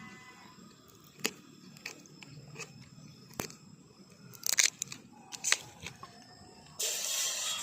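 Scattered clicks and crinkly handling noises, then about seven seconds in a steady rushing sound starts: water being poured to make coffee.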